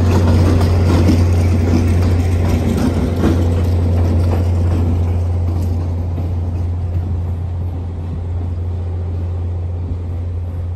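Diesel locomotive passing and moving away, its engine running and the train rattling, fading slowly.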